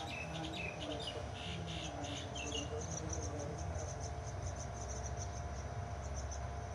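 Insects chirping in short, quickly repeating high-pitched pulses, with a brief cluster of bird chirps in the first couple of seconds, over a steady low rumble.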